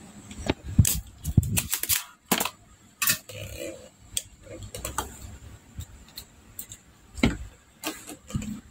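Sharp clicks and snaps, most of them in the first three seconds and a few more near the end, from a spring-loaded desoldering pump being worked to pull solder off a capacitor's joints on a power-supply circuit board.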